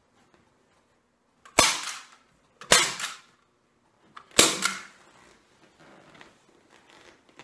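Hand staple gun firing three times, driving staples through new pool table cloth into the table's edge: three sharp snaps, about a second apart.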